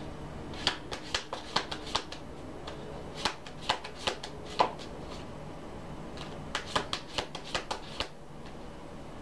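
A deck of cards being shuffled by hand: three runs of quick, sharp card clicks, each lasting about a second and a half, with short pauses between them.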